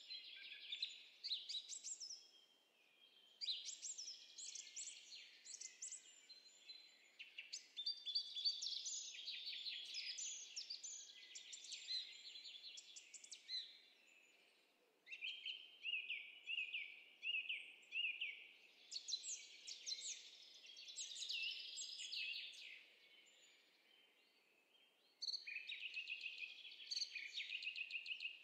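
Birdsong from a nature recording: phrases of quick high-pitched chirps and trills, with short pauses between them.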